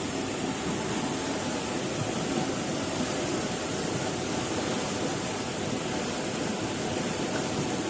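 Muddy floodwater rushing and churning through a breach in an earthen embankment, a steady rush of water.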